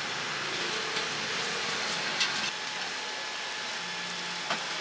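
Oil sizzling steadily on a flat-top griddle under raw coiled scallion pancakes, with a couple of sharp clicks, about two seconds in and near the end.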